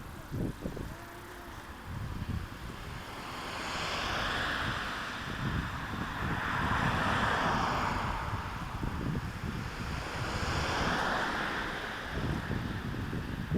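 Wind buffeting the microphone and low rumbling from a moving bicycle, with a rushing hiss that swells and fades three times.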